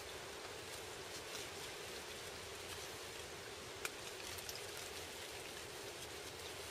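Faint steady rushing hiss, with one small click about four seconds in.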